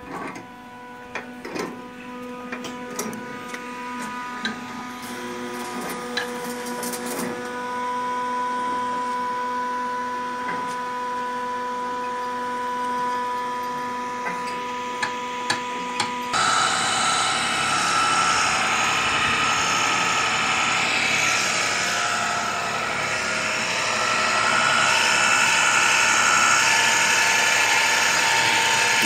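A steady machine hum with scattered clicks and knocks. About halfway through it cuts to a louder, steady grinding run of an electric pipe threading machine working on a steel pipe.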